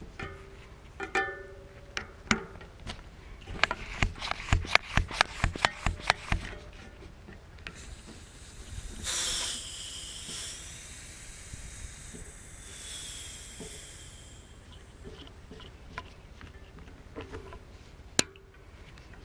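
Sharp clicks and taps as a small inflator head with pressure gauge is handled and fitted onto a bicycle tyre's presta valve, with a fast run of clicks in the first few seconds. Then gas hisses through the head at the valve for about five seconds, with a whistling tone that bends up and down, loudest at first.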